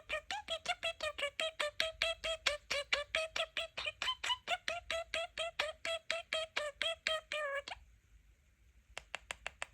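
Pet budgerigar giving a long, rapid string of mimicked electronic beeps, about five a second, which stops about three quarters of the way in. A few short clicks follow near the end.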